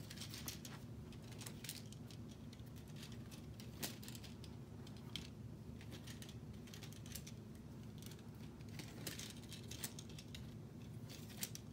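Small plastic K'nex pieces clicking and rattling as model ride seats are slid off their gray connector rods, in scattered light clicks with a steady low hum underneath.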